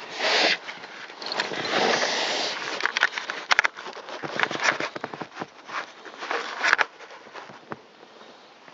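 Close-up handling noise: rustling and scraping with irregular sharp clicks and knocks, loudest in the first couple of seconds and fading near the end.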